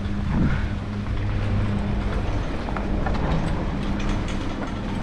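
Steady mechanical hum of a chairlift terminal's drive, with skis hissing over packed snow.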